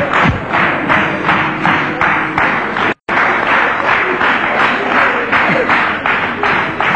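Studio audience applauding, the clapping falling into a loose beat of about two to three claps a second, with a brief cut to silence about three seconds in.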